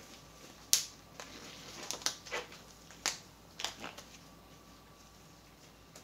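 Disposable rubber gloves being pulled on, stretched and snapped against the wrist: a series of sharp snaps and crinkles, the loudest less than a second in, then quiet in the last two seconds.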